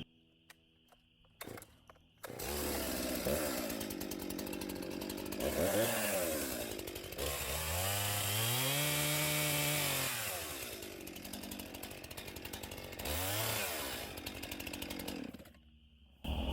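Two-stroke chainsaw cutting out a sapling. After about two seconds of near silence with a few clicks, the saw comes in and revs up and down in several swells, the longest in the middle, then drops away shortly before the end.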